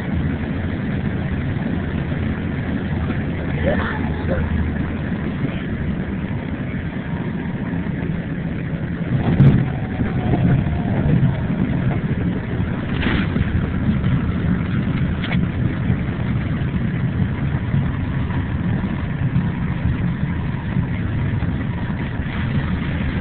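Airliner cabin noise during the landing roll: a steady low rumble of the engines and the wheels on the runway, with a brief louder swell about nine and a half seconds in.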